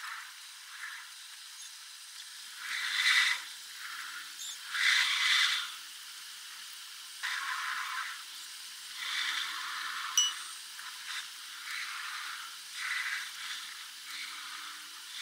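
Train running noise played back at ten times normal speed, so it comes through as a high-pitched hiss that swells and fades every second or two. A single sharp click sounds about ten seconds in.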